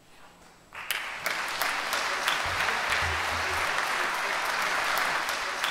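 Audience applauding, the clapping starting about a second in and holding steady.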